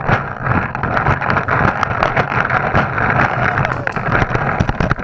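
Many pump paintball markers firing at once in sharp pops, several a second, over a steady rushing noise.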